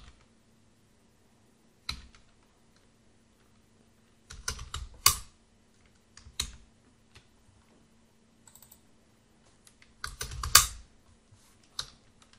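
Computer keyboard keystrokes: a single tap, then short bursts of typing with a few lone key presses between them, over a faint steady hum.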